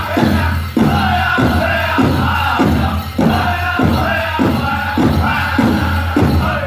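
Powwow drum group singing a chicken dance song: group voices over a big drum struck in a steady beat, a little under two strikes a second.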